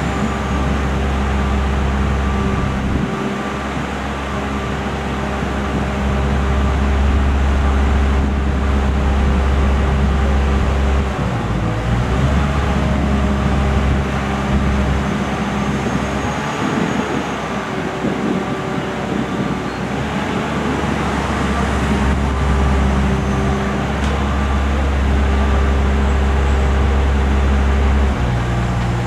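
Aerial boom lift's engine running with a steady drone, its pitch and level shifting a few times.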